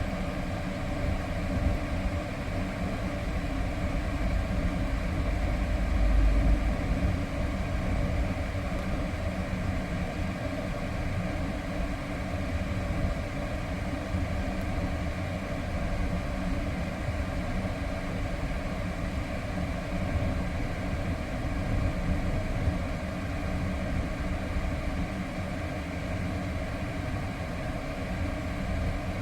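Renault Samsung SM3 on the move, heard from inside the cabin: steady engine and road noise with the freshly recharged air conditioning running, and a louder low rumble about six seconds in.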